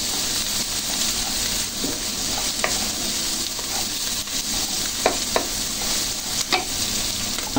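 Onion, garlic, carrot and chilli sizzling in hot oil in a non-stick wok while a wooden spatula stirs them, with a few knocks of the spatula against the pan. The aromatics are being sautéed until fragrant.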